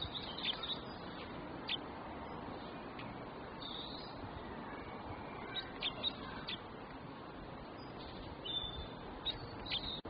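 Small songbirds giving short, high chirps, singly and in small clusters, over a steady background hiss.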